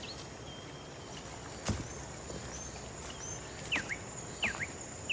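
Forest ambience: a steady high insect drone, with a bird giving a few quick downward-sweeping calls in the second half and some faint whistled notes. A single sharp knock sounds about a second and a half in.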